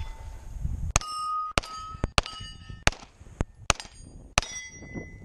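A string of about six pistol shots at steel plates, roughly 0.6 to 0.9 s apart, each hit answered by the ringing clang of the steel; the last plate rings on longest.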